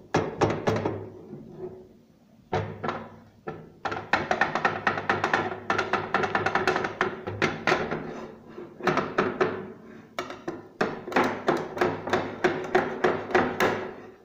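Music with a steady beat of percussion strikes, dropping away briefly about two seconds in.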